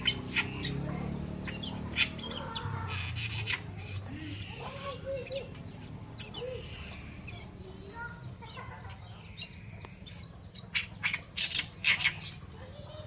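Oriental reed warbler singing: a long run of harsh, chattering and clicking notes, loudest and busiest near the end, over a low steady hum.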